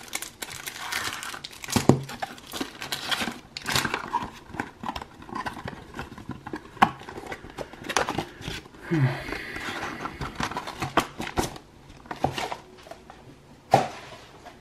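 Hands unwrapping and opening a cardboard trading-card kit box: plastic wrapping crinkling and cardboard flaps rustling, with irregular clicks and scrapes.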